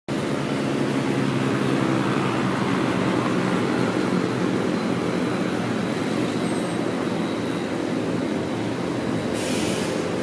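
A BMW M car running at a steady speed, its engine and road noise making a steady rumble with no revving, with a brief hiss near the end.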